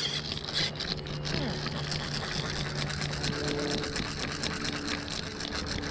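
Fishing reel being cranked steadily to reel in a hooked fish, its gears giving a whirr with rapid faint ticking.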